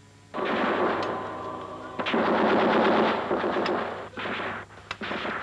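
Machine-gun fire from a war film's battle soundtrack: two long rapid bursts, the first starting suddenly about a third of a second in, then a few separate shots near the end.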